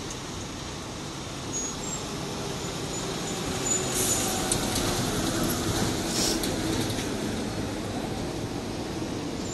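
City bus driving past, its engine and tyres growing to their loudest about four to six seconds in and then easing off, over steady street traffic. Two short hisses come at the bus's loudest moment.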